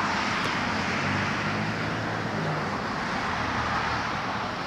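Steady road traffic noise: cars running past, with a low engine hum under the tyre and road noise.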